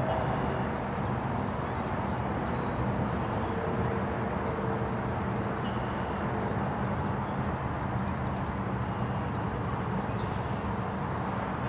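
A steady low hum under an even rushing noise, with small birds chirping and trilling faintly above it.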